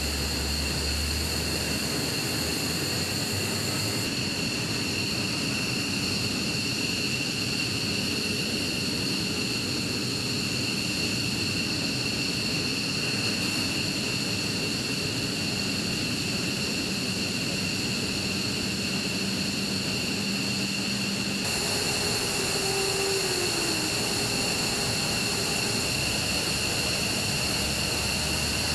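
F-15E Strike Eagle jet engines running: a steady, high-pitched whine of two held tones over a constant rushing noise.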